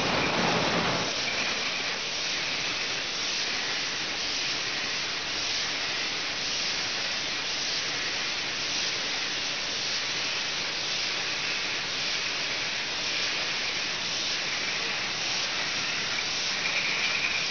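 Steady hissing machine noise of a running rotary rinser-filler-capper bottling line processing 5-litre PET bottles of still water, at about 6,000 bottles an hour. A lower rumble drops away about a second in.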